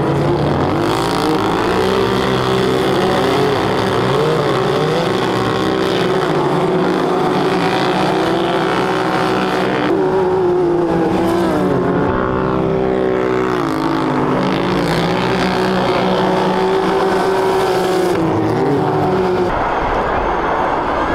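Several side-by-side buggies racing on ice, their engines revving up and down in overlapping notes as they slide through the corners. Near the end the engine notes give way to a rougher, noisier car sound.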